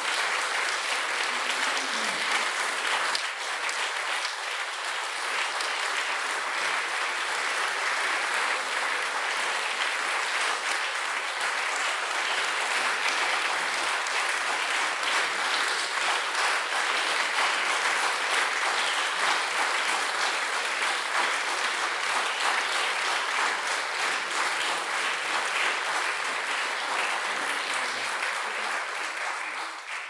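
Concert audience applauding steadily; the applause fades out sharply near the end.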